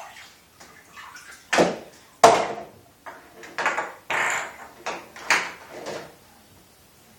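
Bathwater splashing and sloshing as a toddler moves in the tub: a run of about seven separate splashes over several seconds, the loudest about two seconds in.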